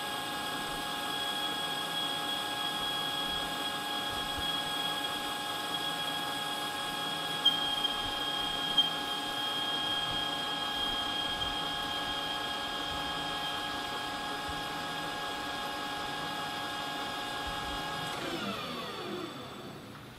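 Metal lathe running with a steady whine of several tones while a facing tool takes a light, slow-feed cut across the end of the workpiece; two sharp clicks stand out about seven and a half and nine seconds in. About eighteen seconds in the lathe is switched off and the whine falls in pitch as the spindle winds down.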